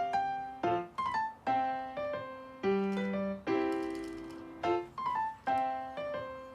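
Background music: a gentle piano melody of single struck notes, each ringing and fading before the next.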